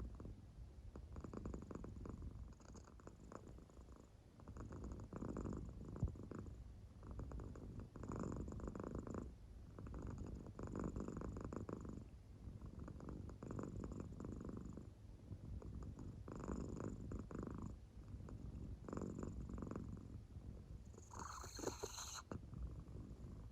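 American Shorthair cat purring faintly in deep sleep, the rumble swelling and fading with each breath about every two and a half to three seconds. A brief different noise comes near the end.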